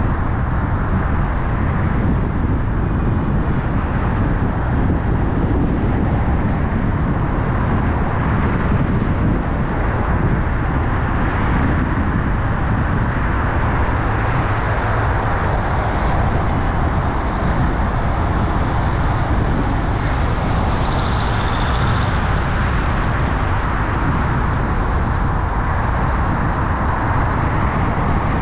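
Steady road and traffic noise of a car driving through city streets: low engine and tyre rumble with the wash of surrounding vehicles.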